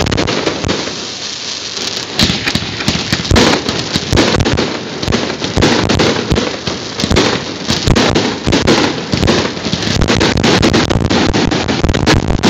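Fireworks display: a rapid, continuous run of bangs and crackling from bursting shells. The bangs come thicker and louder in the last few seconds.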